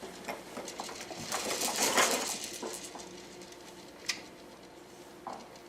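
Baby making noises with her mouth: a run of wet clicks and breathy hissing that swells about two seconds in, then one sharp click about four seconds in.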